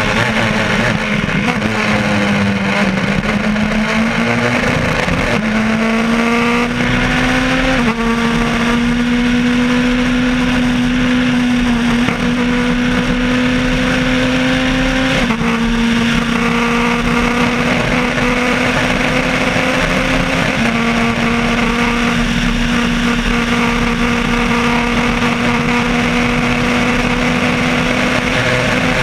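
Race car engine at full throttle heard from the cockpit with heavy wind rush. The pitch sags as the car slows for a corner near the start, then climbs and steps down at upshifts about 5, 8, 15 and 20 seconds in.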